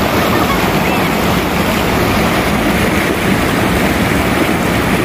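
Shallow river rushing over rocks and rapids: a steady, loud wash of running water.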